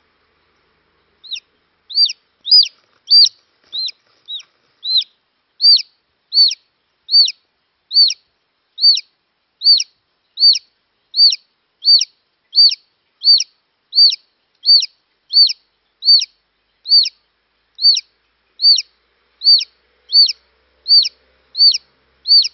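Newly hatched chick peeping over and over, a little more than one peep a second, starting about a second in. Each peep is a short high note that rises and then drops.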